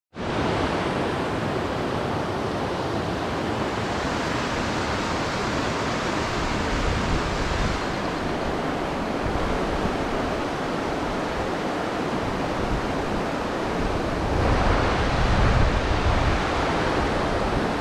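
Mountain headwater stream rushing over rocks, a steady rush of water that swells a little about three-quarters of the way through.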